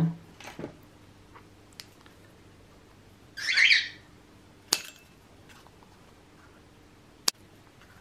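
Scissors cutting a paper straw into short pieces over a glass ramekin: one louder rasping snip about three and a half seconds in, then two sharp clicks as the cut pieces drop onto the glass.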